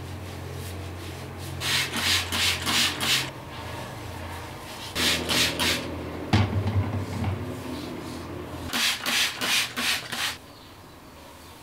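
Curly hair being wetted with water to refresh the curls: three spells of quick hissing, rasping strokes, several a second, about two, five and nine seconds in.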